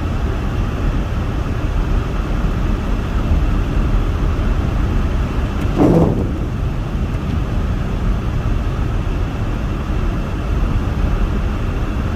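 Steady car-cabin noise while driving on a snow-covered road: engine, tyres and the heater fan blowing to keep the windshield clear. A brief louder sound comes about six seconds in.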